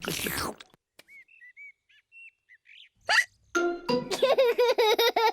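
Cartoon sound effects: a quick loud slurp of juice being gulped down, faint birds tweeting, then a single sharp rising 'hic' of a hiccup about three seconds in, followed by cartoon pigs laughing.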